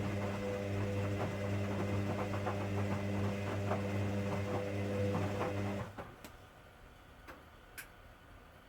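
1959 Hoover Daily washing machine running with a steady mains hum and a rough rattle, which stops abruptly about six seconds in as the machine is switched off; three sharp clicks follow.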